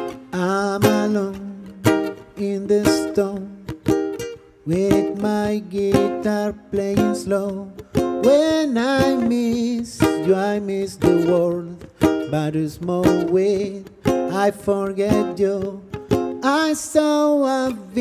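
Ukulele strummed in a steady, even rhythm, with a pitched melody line gliding over it.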